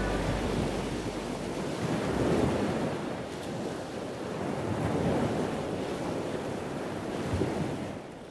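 Sea water rushing and splashing along the hull of a wooden gulet under way, with wind buffeting the microphone. The rush swells and eases every couple of seconds.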